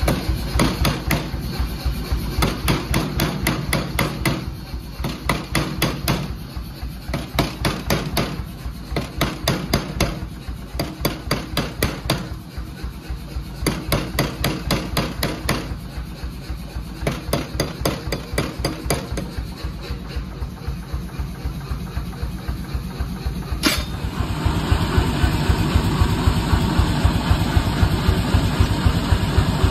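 Power hammer pounding a red-hot stainless steel bar held in tongs, in bursts of rapid blows at about four or five a second. About three-quarters of the way through, a sharp click is followed by a steadier, louder, even mechanical pulsing.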